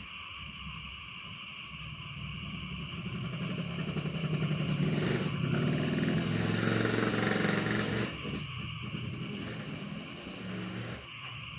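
A motorcycle passing: its engine grows louder over a few seconds, is loudest in the middle, drops away sharply about eight seconds in and then fades. A steady night chorus of frogs and insects runs underneath.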